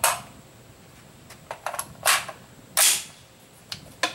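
Gunshots on a rifle range: three sharp reports, each with a short echoing tail, at the start, about two seconds in and loudest just before three seconds, with several fainter cracks between them.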